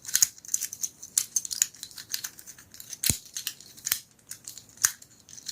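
Infinity cube fidget toy being flipped and folded in the hand, its hinged cubes making quick, irregular clicks, with one sharper knock about three seconds in.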